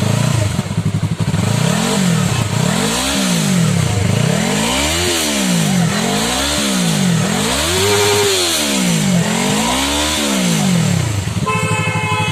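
Yamaha R3's 321 cc parallel-twin engine, breathing through an aftermarket exhaust with the dB killer removed, revved in place: about six throttle blips, each rising and falling back to idle, then settling to a steady idle near the end.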